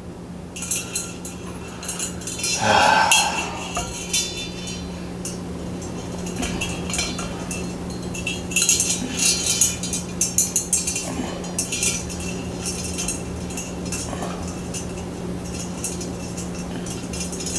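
Metal ball pull chains of a ceiling fan clinking and rattling, with scattered small clicks and a scrape as the light-kit plate is handled and fitted against the switch housing. The clicks come thickest about halfway through.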